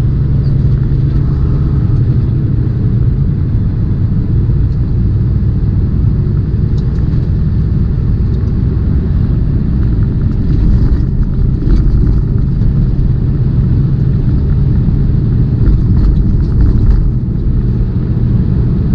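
Semi truck's diesel engine and road noise heard from inside the cab while driving: a steady, loud low rumble.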